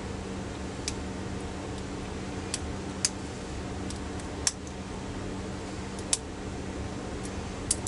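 Lock pick clicking against the pins inside a Master Lock tailgate lock as it is picked: about six small, sharp ticks at irregular intervals, over a steady low hum.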